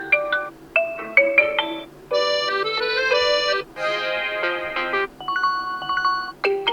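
Huawei P60 Pro default ringtone playing: a synthesized melody of short notes, then held chords about two seconds in, with a new phrase of notes starting near the end.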